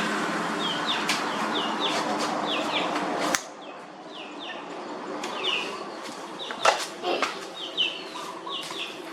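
Small bird chirping over and over in short falling chirps, over a steady buzzing hiss that cuts off suddenly about three and a half seconds in. A few sharp knocks follow later.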